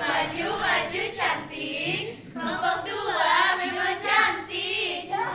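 A group of people singing together, many voices overlapping.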